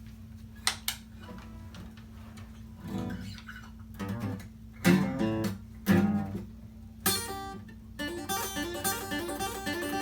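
Acoustic guitar: two light taps, then a few single strummed chords a second or so apart, settling into steady strumming about eight seconds in, over a faint steady hum.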